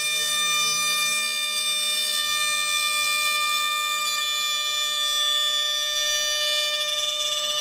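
CNC router spindle running at a steady speed: a constant high-pitched whine with several pitches sounding at once.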